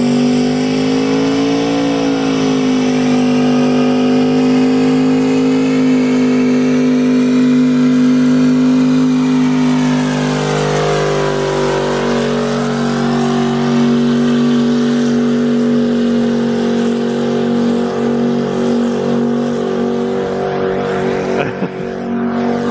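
A car engine held at high revs through a long burnout, the rear tyres spinning on the pavement. The pitch stays nearly level, with a brief dip about halfway through.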